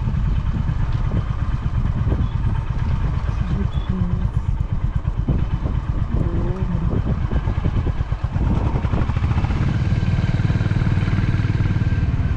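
Motorcycle engine running under way, a steady low pulsing with a brief dip about eight seconds in before it settles back to an even, slightly louder run.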